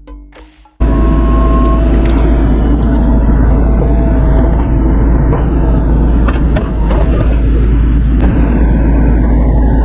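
Bobcat E42 mini excavator working, its diesel engine and hydraulics a loud steady drone with a faint wavering whine and a few knocks later on. Music fades and cuts off under a second in as the machine sound starts.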